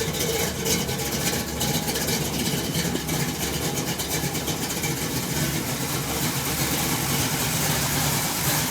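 V8 engine of a 1980 Chevrolet C10, fitted with a Comp Cams Thumpr 279 flat-tappet camshaft, idling steadily with a rumbling idle.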